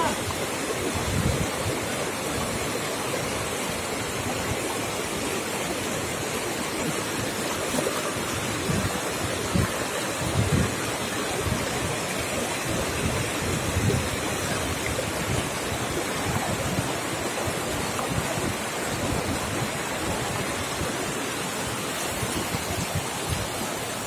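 Shallow mountain river rushing over boulders and stones, a steady wash of water, with occasional low gusts of wind buffeting the microphone.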